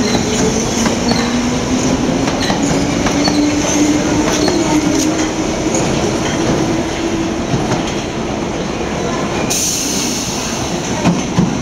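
London Underground Piccadilly line train (1973 Stock) running in over curved track into the platform, with short high wheel squeals and clicks over a steady rumble. A steady whine rises slowly in pitch over the first several seconds.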